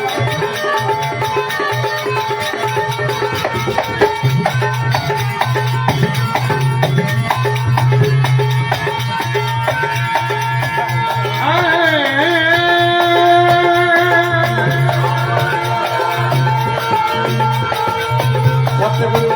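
Instrumental interlude of a Marwari devotional bhajan: a steady hand-drum rhythm under sustained drone tones, with a wavering melodic phrase about eleven seconds in.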